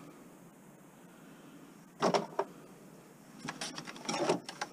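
Metal scrap parts being handled: a sharp clank about two seconds in, then a quick run of clicks and clinks from about three and a half seconds in.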